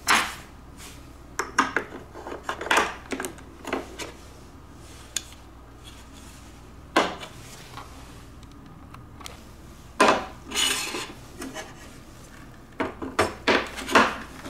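Plastic LEGO bricks clicking, clacking and rubbing as they are handled and pressed together, in irregular bursts with quiet spells between them.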